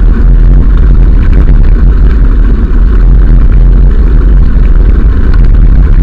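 Heavy wind rumble buffeting the microphone of a camera moving along a path, with a steady crackle of wheels rolling over loose gravel.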